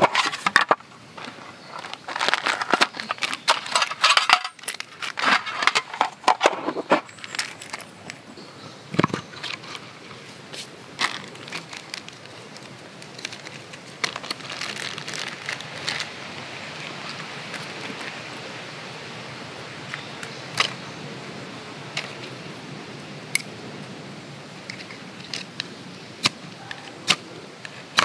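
Small metal tin of fire-starting gear being handled and opened, its contents clinking and rattling in a dense run of clicks over the first several seconds. After that, sparser clicks and light rustling as a small bag of cotton-ball fire starters is handled.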